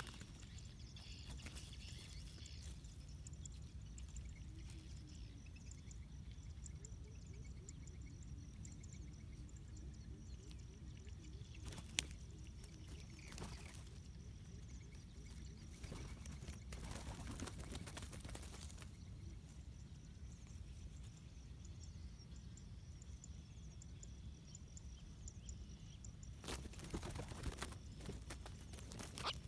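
Wild red junglefowl flapping its wings and scuffling in dry grass in short bursts, the loudest near the end, over a low steady wind rumble. Faint bird chirps and a single sharp click about twelve seconds in.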